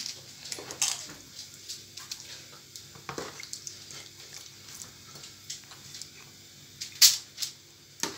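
Wet squelches and sharp taps as marinated chicken pieces are stirred and lifted from a plastic bowl with a spoon. The loudest tap comes about seven seconds in.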